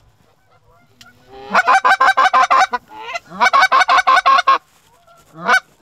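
Canada goose calls blown in two fast runs of clucks and honks, about eight notes a second, with a single honk near the end: hunters calling to flying Canada geese.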